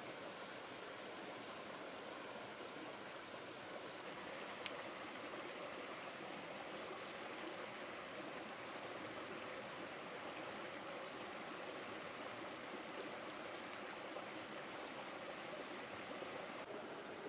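Small rocky stream rushing steadily over stones, with a single sharp click about five seconds in.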